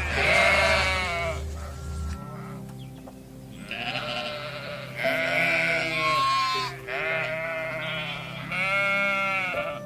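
A flock of sheep bleating: about five long, wavering bleats, one after another with short gaps.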